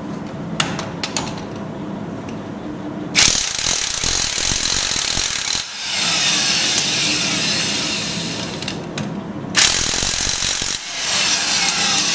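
Corded electric impact wrench hammering lug nuts off a car wheel, starting about three seconds in and running in several long bursts with short breaks between them.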